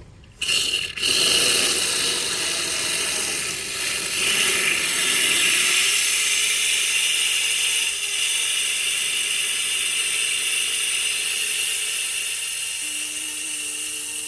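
Aerosol pump-protector can discharging into a pressure washer pump's water inlet, cleaning and lubricating the pump's interior: a steady spray hiss that starts with a brief burst, then runs on continuously, easing slightly near the end.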